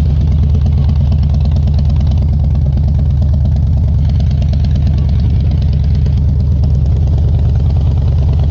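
2008 Harley-Davidson Fat Boy's Twin Cam 96 V-twin idling steadily through Rush slash-cut slip-on mufflers with 2-inch baffles, a deep rumble.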